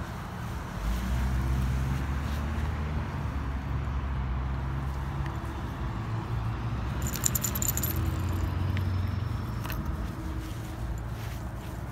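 Metal tags and leash clip on a small dog's harness jingling for a moment about seven seconds in, over a low steady motor hum.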